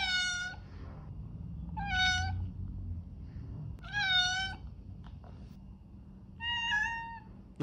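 Domestic cat meowing four times, thin high-pitched meows about two seconds apart.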